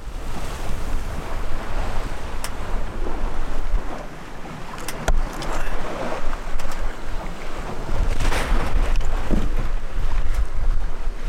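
Wind buffeting the microphone over the rush of water along a sailboat's hull as it sails at speed, with a few faint clicks.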